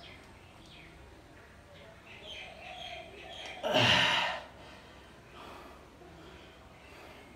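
Faint birds chirping throughout. About four seconds in, a man's single loud, breathy exhale of effort during a set of dumbbell presses.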